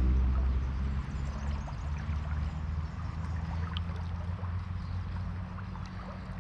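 Small river running, a steady rush of water. Under it is a low vehicle hum that drops away after about a second and lingers faintly.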